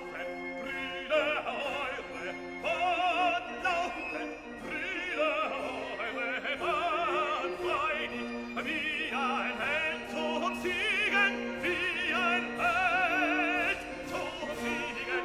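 Operatic singing with orchestral accompaniment: a singer holds long notes with wide vibrato over sustained lower instrumental notes.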